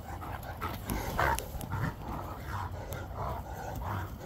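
Two Great Danes play-fighting, giving a string of short rough grunts and huffs, the loudest about a second in.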